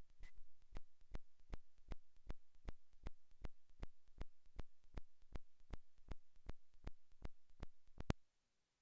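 Regular electronic clicking, about two and a half sharp clicks a second over a thin high-pitched whine: a recording glitch in the audio. It cuts off suddenly near the end, leaving dead silence.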